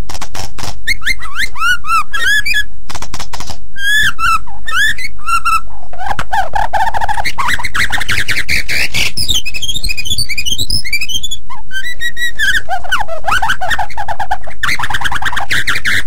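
White-rumped shama (murai batu) singing without pause: a fast, varied run of whistled phrases with rising and falling glides, sharp chips and rapid trills.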